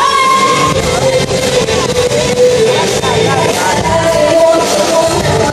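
Pop song with a woman singing over a dense dance-pop backing track, her voice holding long melodic notes.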